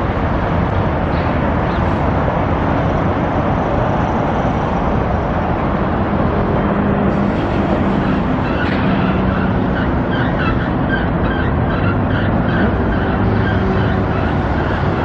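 Steady, loud road-vehicle and traffic noise.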